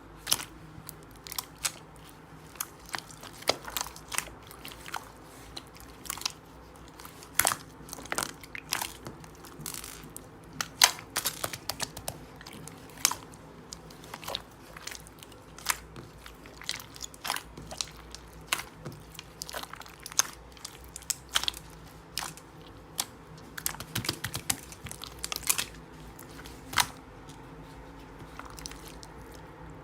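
Slime with small round bits mixed into it being pressed and worked by hand, giving irregular sharp clicks and crackles, roughly one to three a second with some quick clusters.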